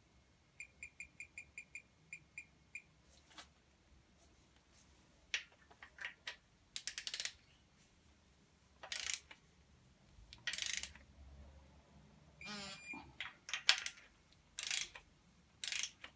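A torque wrench in use on the timing-belt tensioner and pulley bolts: a string of about ten short, high electronic beeps in the first three seconds, then scattered clicks and knocks with a quick run of ratchet clicks about seven seconds in.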